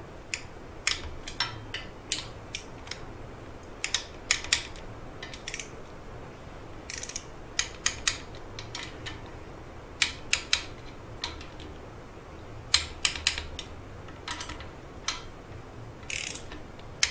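Torque wrench ratchet clicking in short bursts of a few sharp clicks each, every second or two, as the water pump bolts are run down and torqued to about 108 inch-pounds.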